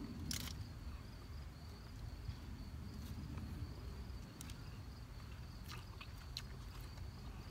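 Faint sounds of eating by hand from a banana leaf: chewing with a few scattered small clicks, over a low rumble and a steady thin high insect drone.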